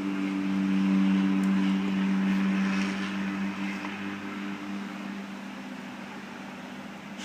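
Steady mechanical hum with a hiss, like a running fan or motor, swelling over the first three seconds and then easing off.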